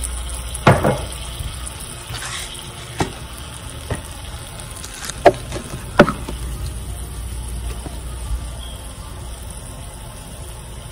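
Sauce simmering and sizzling in a frying pan on a gas stove, a steady hiss, with a few sharp clicks and knocks, the loudest about five and six seconds in.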